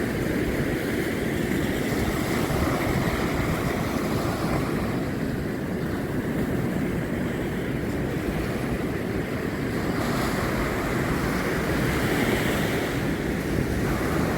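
Ocean surf washing and breaking steadily, with wind buffeting the microphone.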